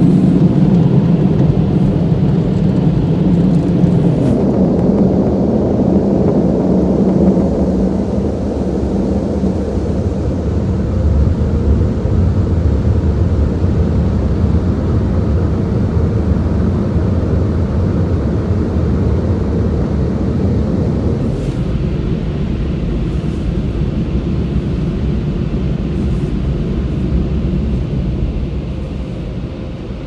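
Car wash air dryers blowing, heard loud from inside the car, with the higher part of the sound dropping away after about four seconds. A steady low rumble follows as the car moves off, fading near the end.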